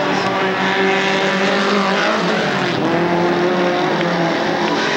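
Off-road race car engines running hard on a dirt track, their pitch dipping about two seconds in and then climbing again.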